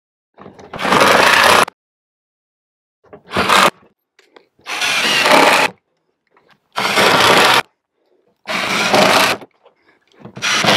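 Cordless Ryobi impact driver driving self-drilling screws to fasten a steel security panel, in six loud runs of about a second each with short pauses between.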